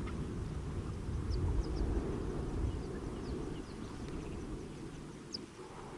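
Low rumbling noise that fades over the last couple of seconds, with faint, short, high bird chirps scattered over it.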